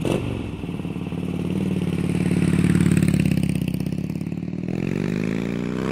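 Motorcycle engine running steadily, then revved with its pitch climbing near the end.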